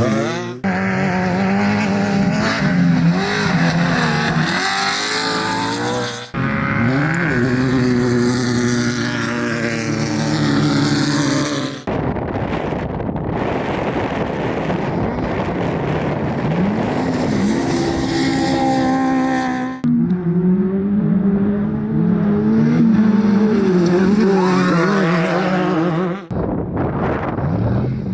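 Off-road desert race vehicles running hard, their engine notes rising and falling as they rev, accelerate and pass, in a string of short clips that cut every few seconds. Through a middle stretch the engine note is buried under a loud rushing noise.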